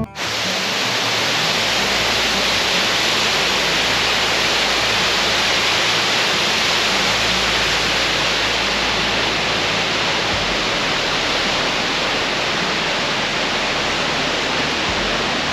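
King's Creek Falls: a waterfall pouring in a loud, steady rush.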